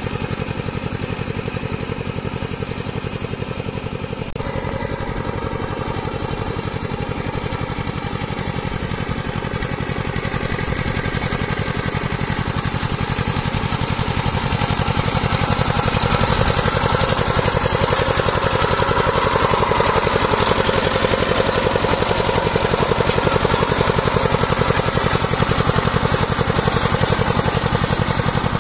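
Two-wheel power tiller's engine running steadily with a fast, even thudding beat as the tiller drags a leveling board through the paddy mud. It grows louder about halfway through.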